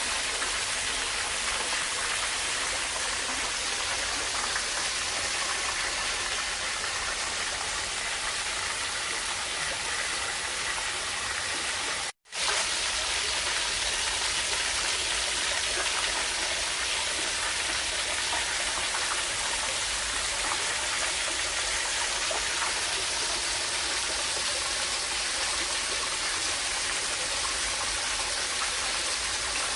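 Steady rush of water, an even hiss without rhythm or tones, which cuts out completely for a moment about twelve seconds in.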